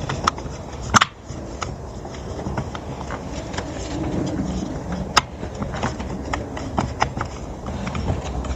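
Hard plastic parts being handled and snapped together around a ride-on toy car's drive motor, with scattered clicks and a sharp snap about a second in and another around five seconds in.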